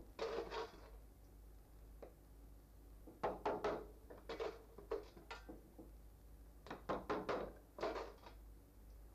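Light hammer taps driving small nails into a wooden skin-drying board, in quick groups of three or four taps with short pauses between.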